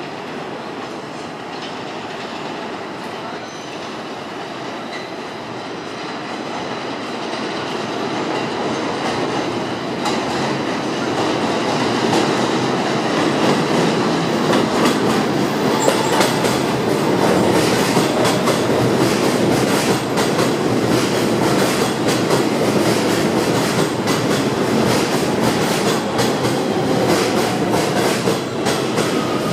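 R160B Siemens subway train running into an elevated station, growing louder over the first dozen seconds as it approaches, then its wheels clattering over the rail joints as the cars roll past at the platform.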